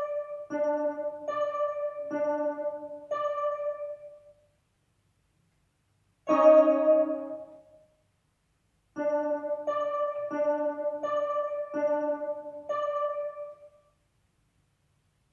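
Electronic keyboard played with a piano sound: a simple children's piece in two short phrases of evenly spaced notes, roughly one every three-quarters of a second, separated by pauses, with a louder chord struck about six seconds in and another at the very end.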